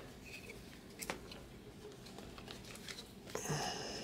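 Faint handling sounds of chrome trading cards being thumbed off the front of a stack by hand: a click about a second in, a few light ticks, and a brief sliding rustle near the end.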